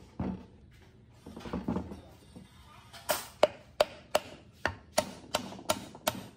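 Workshop handling noise: a single thump, then from about three seconds in a run of sharp, evenly spaced knocks, about three a second.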